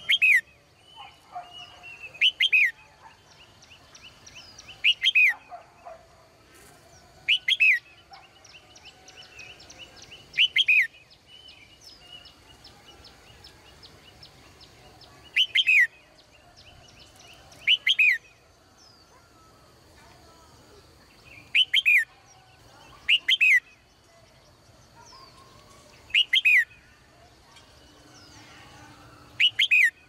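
Female red-whiskered bulbul calling: about eleven loud, short calls, each a quick pair of falling whistled notes, repeated every few seconds.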